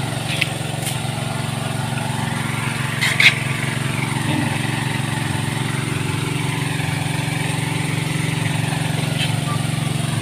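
Small engine, likely a water pump draining the pond, running steadily at an even speed. A brief sharp noise about three seconds in.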